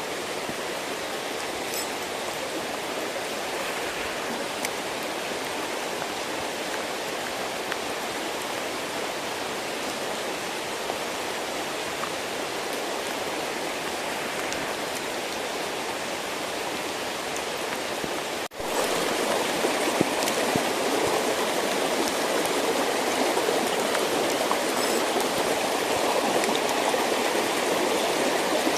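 Steady rush of water in a small stream. About two-thirds of the way in it drops out for a moment and comes back louder.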